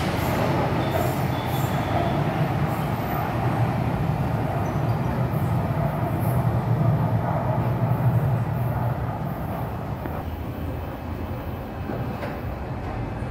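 São Paulo Metro train running on its rails, a steady rumble that eases off a little after about nine seconds.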